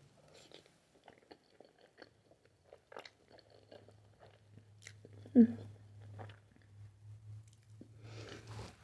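Close-miked chewing of a mouthful of spaghetti in Alfredo sauce, with many small wet mouth clicks. About five seconds in comes one short, loud voiced sound from the eater. A low steady hum starts about two seconds in.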